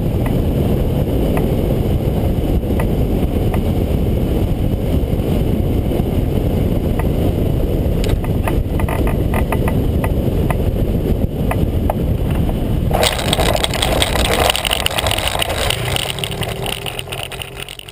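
Wind rushing over the microphone of an ultralight trike gliding with its engine shut off, with no engine running. From about halfway there are scattered clicks as it comes down onto the dirt strip, and around two thirds of the way through the sound turns to a hissing crunch of the wheels rolling on the dirt, fading as the trike slows.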